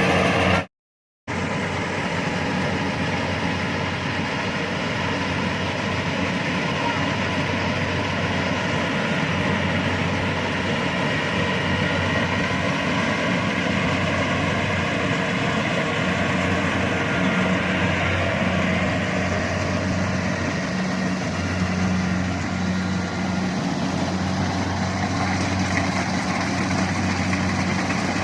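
Kubota DC-70 rice combine harvester's diesel engine running steadily, with its threshing machinery going. The sound breaks off to silence for a moment about a second in.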